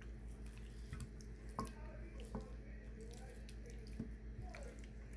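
Hands rubbing oiled, seasoned raw chicken drumsticks in a glass baking dish: soft, irregular wet squishes and clicks over a low steady hum.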